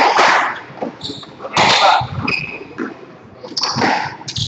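Squash shoes squeaking on the court's wooden floor several times, short high squeals, between louder short bursts of noise.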